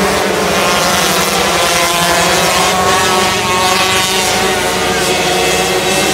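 Several 125cc micro sprint cars racing, their two-stroke engines making a loud, steady, many-toned buzz that shifts slightly in pitch and swells a little in the middle as the cars pass.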